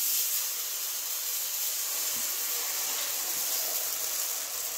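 Hot dosa griddle (tawa) hissing steadily as uthappam batter cooks on it.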